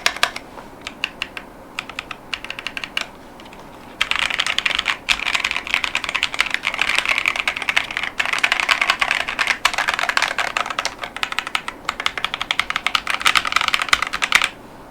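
Typing on a mechanical keyboard with Leobog Ice Soul 30gf tactile switches and PBT keycaps. A few scattered keystrokes come first, then a brief pause, then fast continuous typing that stops just before the end.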